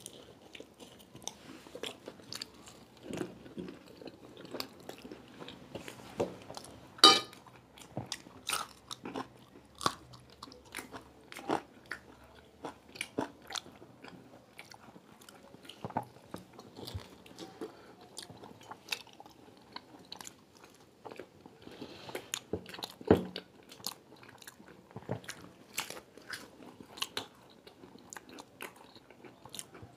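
Two people biting into and chewing crisp fried samosas, with irregular crunches and chewing sounds throughout. The sharpest crunch comes about seven seconds in, and another strong one comes a little after twenty-three seconds.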